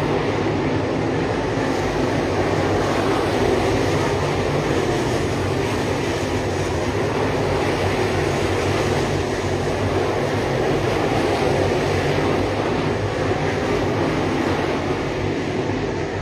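A pack of 604 crate-engine dirt late model race cars running at race speed around the dirt oval, their V8 engines blending into one continuous, loud, steady drone.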